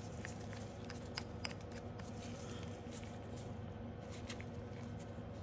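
A few light clicks and taps as nail-stamping tools are handled: a polish bottle and a clear silicone stamper worked over a metal stamping plate. A faint steady electrical hum lies beneath.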